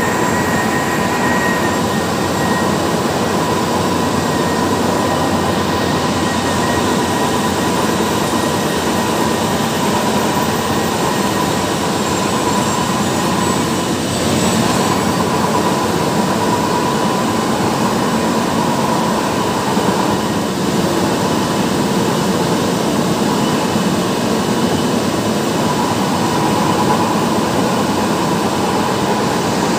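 Tea-processing machinery running: motor-driven conveyor belts and rollers carrying green tea leaves make a loud, steady mechanical din with a faint steady whine.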